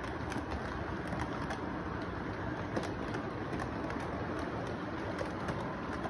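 Model train running past on its track: a steady rolling rumble with irregular sharp clicks as the wheels cross the rail joints.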